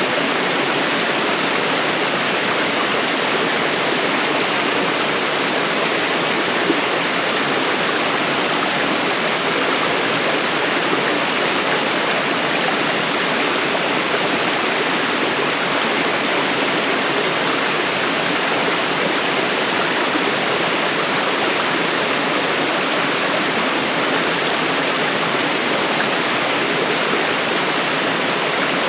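Small mountain waterfall: water falling and rushing over rock in a steady, even hiss.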